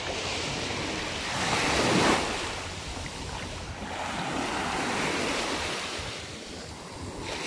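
Small waves washing onto a sandy beach, breaking in the shallows and running up the sand. The wash swells and fades, loudest about two seconds in, with another swell around the middle.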